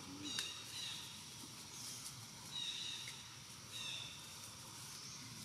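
Three short, high-pitched animal calls, each a flat whistled note, spread through a faint outdoor background.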